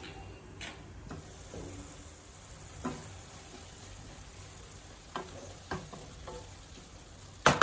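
Chicken keema frying in a pan, a steady sizzle with a few light knocks scattered through it, and a louder clatter near the end.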